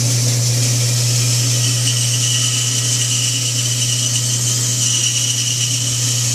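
Bandsaw running with its blade cutting a straight relief cut into a small wooden block: a steady hum and hiss, with a high whine from the blade in the wood coming in about two seconds in and fading near the end.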